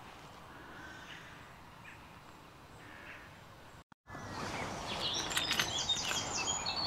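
Outdoor ambience with a few faint bird calls. After a sudden cut about four seconds in, it turns louder, with birdsong of quick, repeated high chirps and a few sharp clicks.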